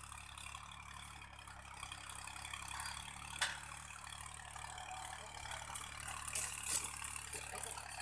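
Faint outdoor ambience: a steady low hum under a light hiss, with one sharp knock about three and a half seconds in and rustling that grows louder near the end.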